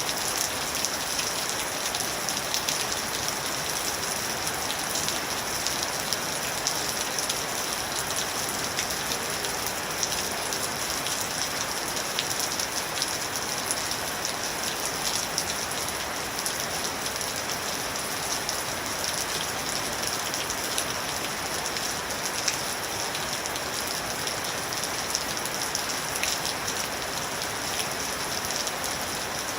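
Steady rain falling and pattering on surfaces, an even hiss full of fine, close drop ticks.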